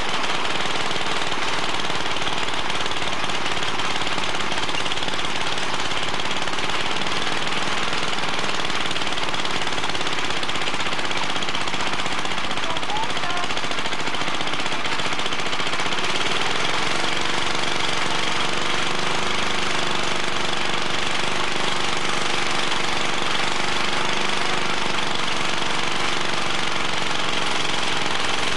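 Small petrol engine of a walk-behind tiller (motor hoe) running steadily with a dense rattling clatter as its tines work the soil. About halfway through, a clearer steady engine note comes up over the rattle.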